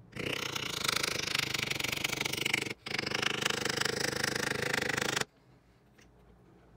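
A power tool running against a workpiece in two bursts of about two and a half seconds each, with a short break between them.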